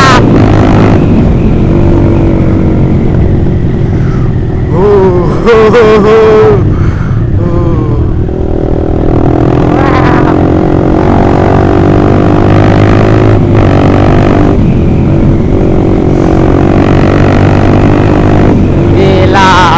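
Honda CBR150R single-cylinder four-stroke engine through a loud Austin Racing aftermarket exhaust, riding along and revving up and easing off several times.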